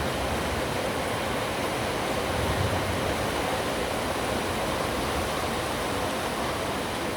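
Steady heavy rain falling, an even hiss with no thunderclap.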